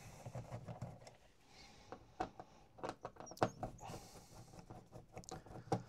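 Screwdriver turning out the top-cover screws of a MiniDisc deck's metal case, with scattered small clicks and taps from the screws and tool.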